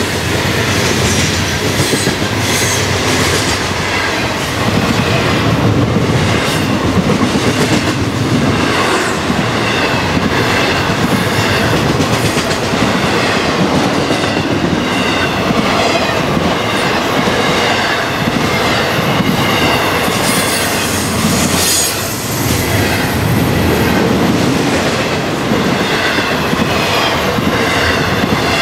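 Freight train cars rolling past close by: a steady rumble of wheels on rail, with a rhythmic clickety-clack as the wheels cross rail joints, and a high wavering wheel squeal now and then.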